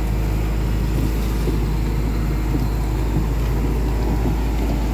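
Hitachi Zaxis 110 excavator's diesel engine running steadily close by, even in pitch and level throughout.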